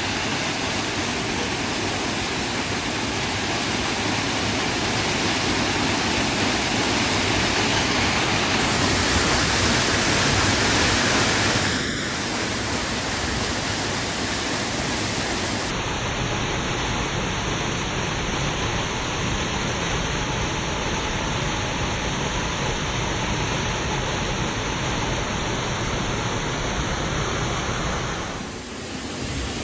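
Waterfall rushing steadily, a continuous even wash of falling water, heard through a phone microphone. The level drops slightly about twelve seconds in and dips briefly near the end.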